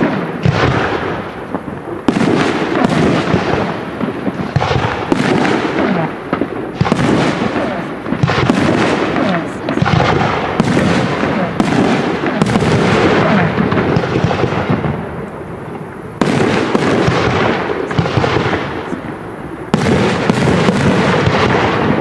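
Aerial fireworks shells bursting one after another, a bang about every second, with crackle and rumble filling the gaps. The barrage eases briefly about two-thirds of the way through, then picks up again.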